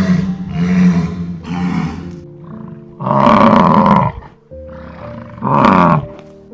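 A big cat roaring in a series of loud calls: three shorter ones in the first two seconds, a longer one about three seconds in, and another near the end, over soft background music with held notes.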